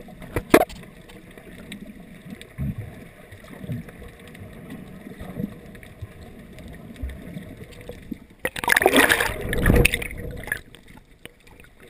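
Underwater sound heard through a GoPro dive housing: a muffled low rush of water, with a couple of sharp knocks near the start. About eight and a half seconds in comes two seconds of loud bubbling and splashing close to the camera.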